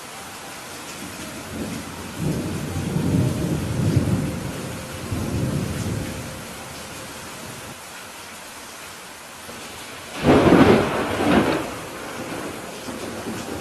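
Steady heavy rain with thunder: a low rolling rumble swells and fades in the first half, then a sharper, louder thunderclap breaks about ten seconds in and rumbles off.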